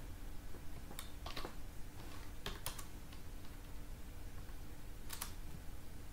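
A few separate keystrokes on a computer keyboard, about half a dozen sharp clicks spaced irregularly over a faint steady hum.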